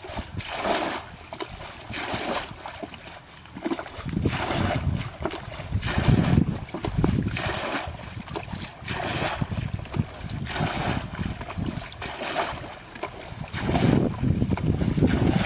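Green plastic bucket scooping water from a shallow muddy ditch and throwing it out, a splash every second or so as the ditch is bailed dry, over a low rumble of wind on the microphone.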